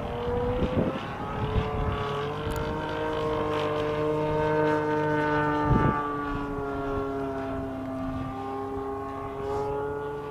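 Radio-controlled model airplane flying past, its motor and propeller a steady whine that slowly falls and rises in pitch as it moves about the sky. Gusts of strong wind thump on the microphone a few times.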